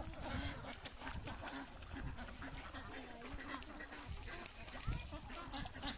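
Ducks quacking repeatedly in short calls.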